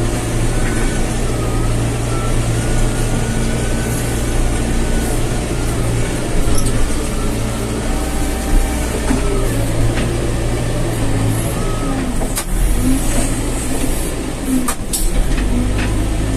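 Backhoe loader's diesel engine running steadily under load while it pushes wet dirt, with a wavering higher whine over it. A few sharp clanks come near the end.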